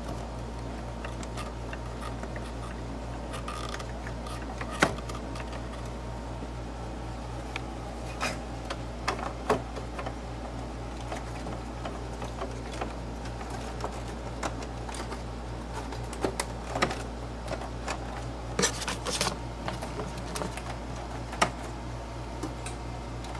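Scattered clicks, taps and knocks of circuit boards, connectors and a fan being handled and fitted back into a vintage oscilloscope, over a steady low hum.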